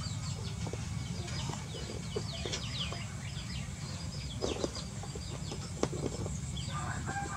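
Birds chirping in many quick, high, falling notes, with a lower call just before the end, over a steady low rumble.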